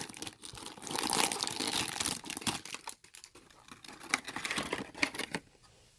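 Crinkly plastic foil blind bag being torn open and crumpled by hand, in irregular bursts of crackling and rustling that thin out in the second half.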